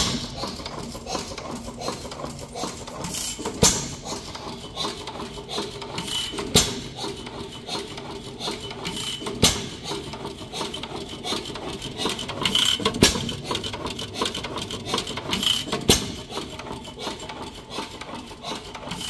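Fairbanks-Morse 6 hp Type H hit-and-miss engine running on propane: a sharp bang about every three seconds as it fires, with steady mechanical clatter between firings as it coasts on its flywheels.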